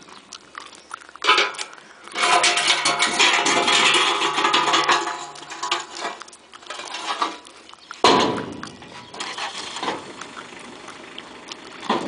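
Metal loading ramps being dragged and set against a river ferry's deck: a clang about a second in, then a long grating scrape with a metallic ringing for about three seconds, and a sharp knock about eight seconds in.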